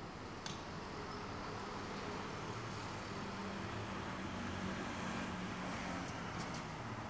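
Road traffic: a vehicle's engine and tyres running steadily, swelling slightly as it goes on, with a sharp click about half a second in and a few light ticks near the end.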